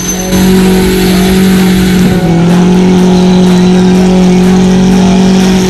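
Car engine held at high, nearly steady revs during a burnout, with the driven tyres spinning and squealing on the tarmac.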